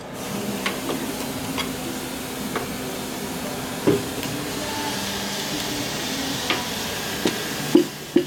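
Steady hiss and faint hum, broken by a few scattered clicks and knocks of metal tools and parts being handled on a workbench, with two sharper knocks near the end.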